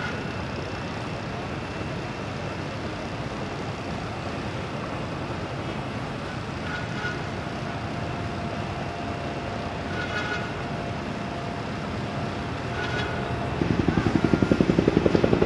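Heavy vehicle engines running steadily. Near the end a louder engine comes in with a fast, even pulsing.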